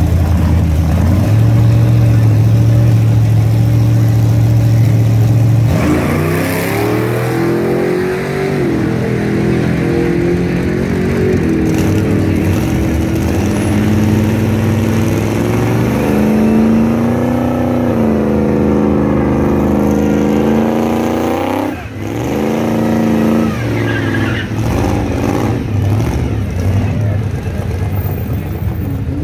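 Drag race car engine running loudly at the start line: a steady idle, then revved repeatedly from about six seconds in, its pitch rising and falling, with a brief drop about twenty-two seconds in.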